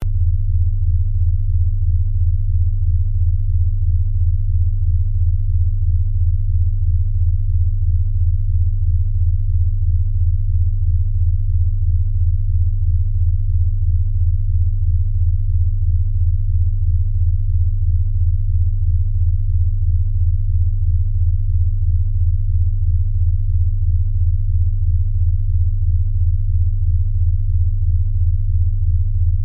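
Steady low sine-wave tones near 100 Hz with a fast, even pulsing throb several times a second: a sound-therapy tone track.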